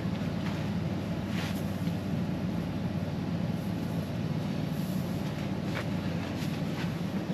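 Portable air conditioner running, a steady low hum of its compressor and fan, with a couple of faint knocks.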